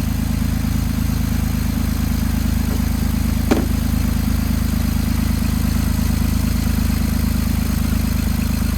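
2008 Jeep Wrangler's 3.8-litre V6 idling steadily, with one short sharp sound about three and a half seconds in.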